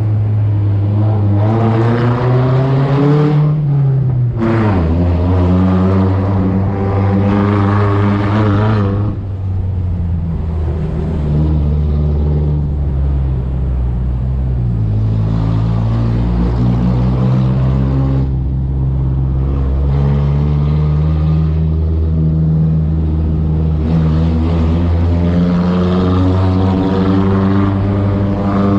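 Off-road vehicle's engine driving in low gear. It rises in pitch, drops sharply about four seconds in as the gear changes, runs steadily, then picks up again near the end.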